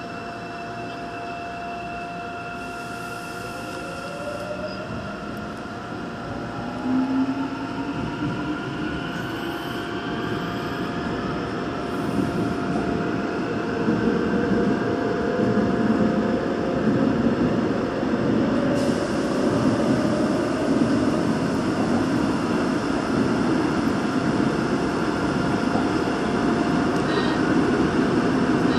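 Daegu Metro Line 2 electric train pulling out of a station and accelerating into the tunnel, heard from inside the car: a whine from its electric drive rises in pitch over the first dozen seconds over a steady tone, and the wheel and tunnel rumble grows louder as it gathers speed.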